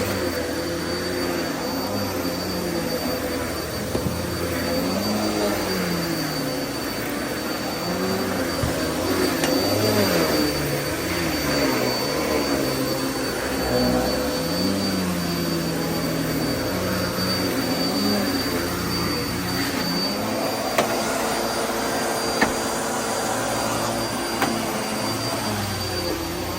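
Vacuum cleaner running continuously with a steady high whine, its lower motor tones wavering up and down. A few sharp clicks sound near the end.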